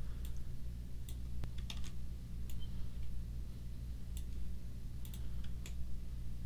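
Computer mouse clicks and keyboard key presses: scattered light clicks at irregular intervals, over a steady low hum.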